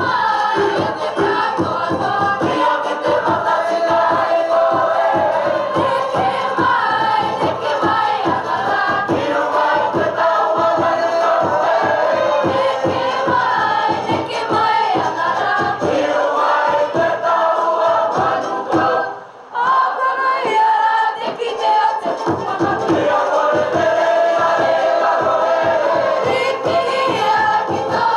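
Cook Islands song sung by a mixed group of student performers in chorus, over a steady rhythmic accompaniment. About two-thirds of the way through, the sound drops out for a moment and then comes back.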